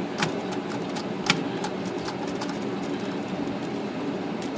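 A few light clicks and taps from handling a manual typewriter, the sharpest about a second in, over a steady mechanical hum.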